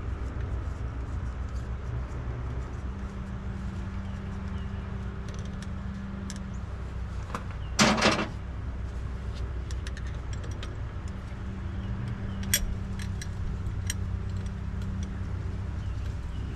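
Hand tools working on an engine's open top end: small metallic clicks and one louder, sharp clank about eight seconds in, over a steady low rumble.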